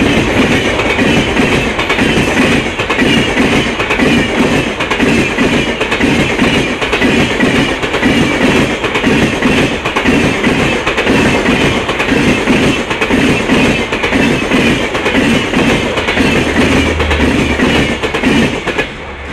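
LHB passenger coaches of an express train passing at high speed, their wheels clattering over the rail joints in a fast, even rhythm amid loud rolling noise. A low steady hum comes in near the end, and the clatter drops away sharply as the last coach goes by.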